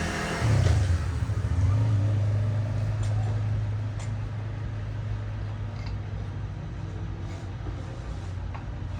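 A low, steady engine hum, louder for the first couple of seconds and then even, with a few faint ticks.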